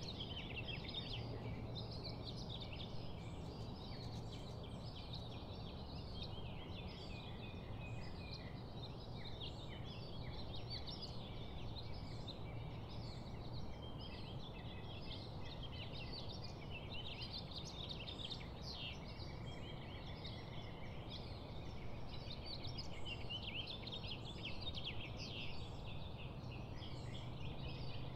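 A dense, continuous chorus of birds chirping and calling, with a low steady hum underneath.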